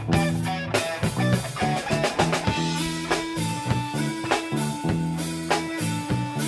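Live blues band playing an instrumental break: an electric guitar lead with long held notes over a repeating bass riff and steady drums.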